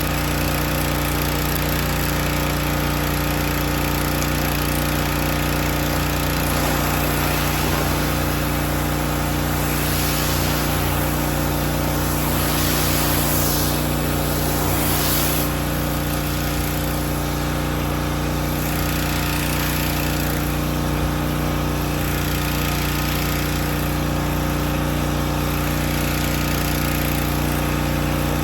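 Predator gas pressure washer engine running steadily under load while a 14-inch surface cleaner's spinning spray bar hisses against concrete. The spray hiss grows brighter for a few seconds around the middle.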